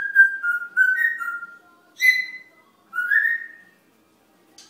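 African grey parrot whistling: a quick run of short whistled notes stepping up and down, then two more whistles about two and three seconds in, the first of them harsher and richer in overtones. A brief click sounds near the end, after a quiet gap.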